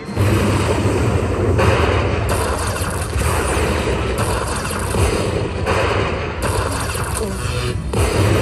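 Lightning Link slot machine tallying a finished hold-and-spin bonus: a dense, rapid clicking count-up of the win, ratchet-like, changing in sections every second or so.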